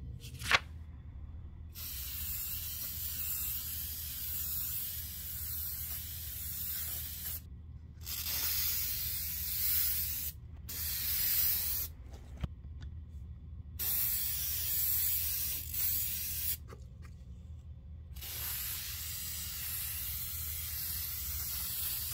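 Sprayer hissing in five bursts of a few seconds each, laying colour onto leather, with a sharp click just before the first burst.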